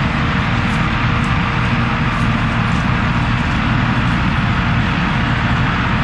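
John Deere Turbo 7720 combine running steadily while harvesting soybeans: a loud, even drone of the diesel engine and threshing machinery.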